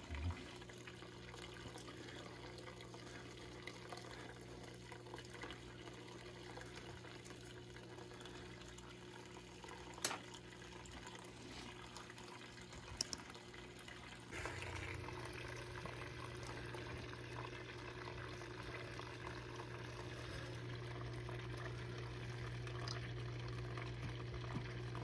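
Thin stream of water running steadily across a Miller table and spilling off its end into the catch tub, over a steady low hum. A couple of faint clicks come partway through, and the sound gets a little louder about two-thirds of the way in.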